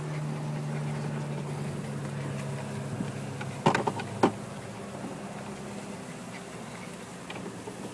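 Golf cart running with a steady low hum that fades about three-quarters of the way through. A little past halfway there are two sharp knocks about half a second apart, the loudest sounds.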